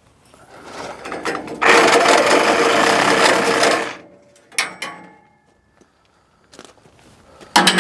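Corded reciprocating saw with a metal blade cutting through the steel tubing of an IBC tote cage: a loud burst of about two seconds, then a couple of sharp clicks. Another loud sound starts near the end.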